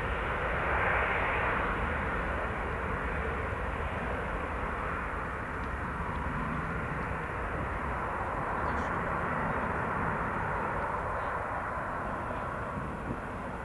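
Embraer 195 airliner's two GE CF34-10E turbofan engines at takeoff thrust, a steady jet roar. It is loudest about a second in and fades gradually as the jet rolls down the runway away from the microphone and lifts off.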